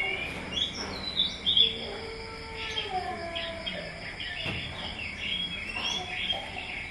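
Small birds chirping in the background: many short, high chirps scattered throughout, with a few lower gliding calls about two seconds in.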